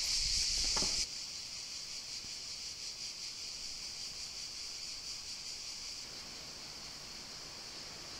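Steady high-pitched insect chirring with a few footsteps on stone in the first second; it drops to a fainter chirr about a second in and carries on steadily.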